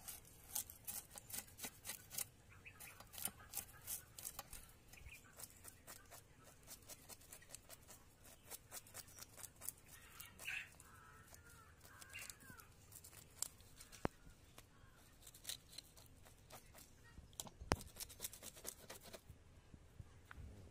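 Scales being scraped off climbing perch with an iron knife blade: a run of quick, irregular scraping clicks, several a second. A faint bird call sounds about ten seconds in.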